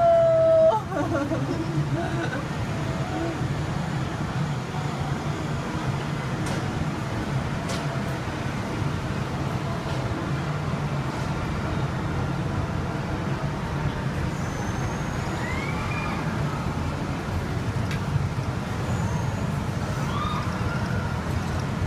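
Steady low rumble of background noise with faint voices. A loud falling wail dies away within the first second, and a few faint short gliding tones come later.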